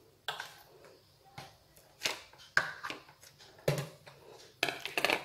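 A handful of separate knocks and clinks against a stainless steel mixing bowl, as an orange plastic bowl is tapped on its rim to scrape margarine in and hand mixer beaters are set into it; the mixer is not running.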